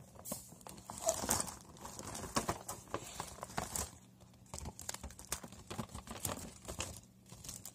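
Plastic packs and a gift bag being handled, rustling and crinkling, with many irregular light taps and knocks.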